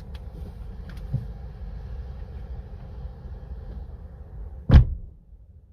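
Steady wind and rain buffeting a car, heard from inside it, with a few light clicks in the first second or so. A single loud thump comes near the end, after which the noise drops away.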